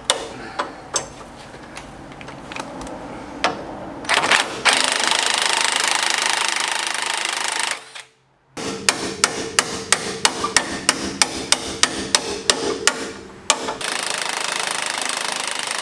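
Impact wrench hammering at a stubborn 17 mm bolt holding the fork on a Honda Civic's front suspension, working to break it loose. It runs steadily for a few seconds, stops briefly, then goes on with sharp regular knocks about four a second, and runs steadily again near the end.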